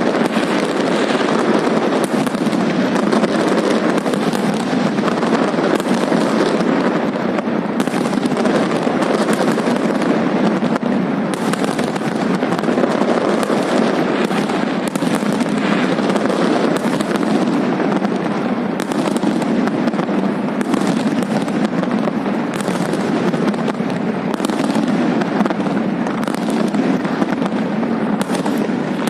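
Fireworks display going off in a dense, continuous barrage of many bangs one after another, with no break.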